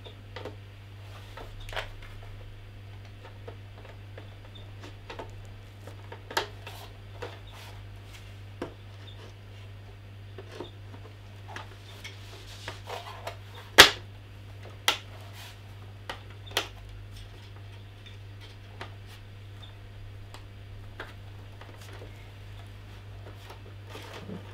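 Scattered clicks, knocks and rubbing as a monitor stand's column is handled and pressed against the back casing of a monitor on a wooden bench, with the loudest knock about halfway through, over a steady low hum.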